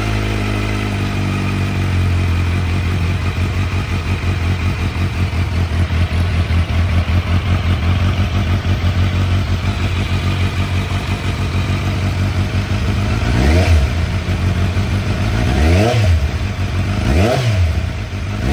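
2023 Kawasaki Z900 SE's inline-four engine idling through a midlink pipe and the stock muffler, its catalyst 'bread box' removed. Near the end, three quick throttle blips, each rising and falling in pitch.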